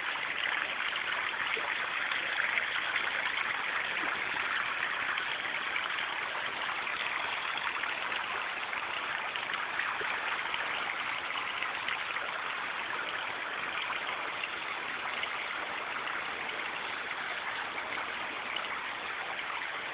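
A small pump-fed garden waterfall, with water splashing steadily over rocks into a pond.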